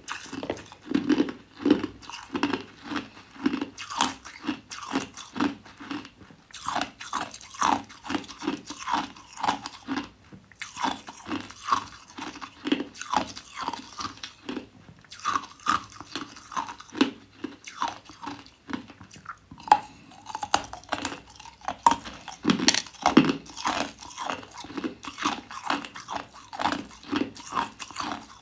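A person biting and chewing hard clear ice: a continuous run of sharp crunches, about two a second, with brief pauses now and then.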